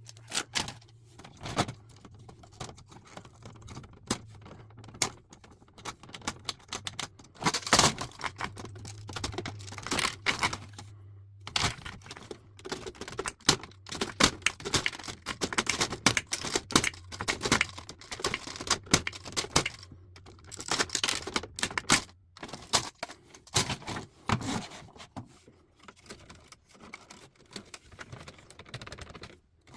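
Metal parts of an old typewriter being dismantled: irregular clusters of sharp clicks, clinks and rattles of small metal pieces and tools, some knocks loud. A low steady hum runs underneath.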